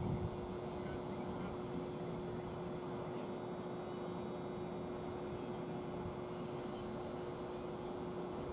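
Steady background hum and noise with a faint, high chirp repeating evenly, about one and a half times a second.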